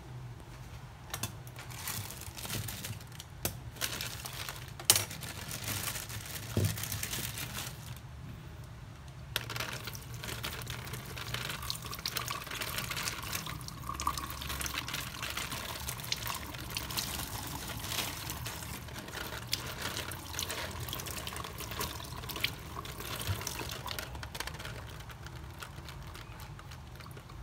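Kitchen tap running, water splashing as vegetables are rinsed by hand, with a few knocks of handling; the flow stops briefly about a third of the way in, then runs again.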